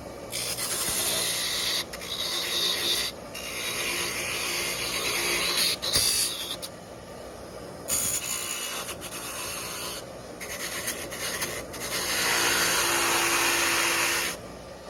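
Electrical connector pins of an idle speed control unit being scrubbed clean of corrosion: scraping strokes in spells of one to two seconds, with short pauses between.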